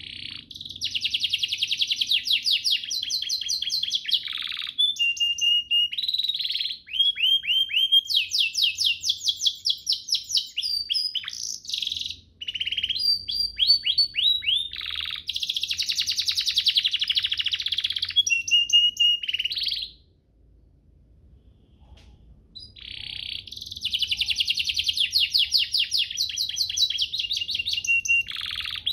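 Domestic canary singing long phrases of rapid trills and short falling notes. The song breaks off for about three seconds about two-thirds of the way through, then resumes.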